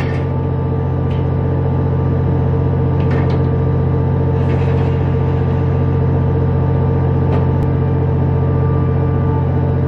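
Steady, loud droning hum of a commercial fishing boat's running machinery, with a few faint light knocks about three, four and a half, and seven seconds in.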